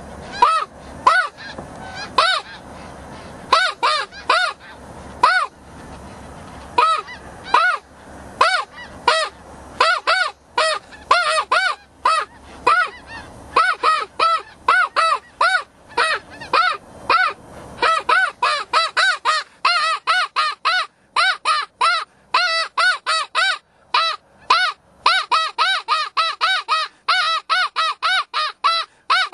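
Snow goose calling: a long run of short, high yelping honks, spaced out at first and quickening to several a second in the second half.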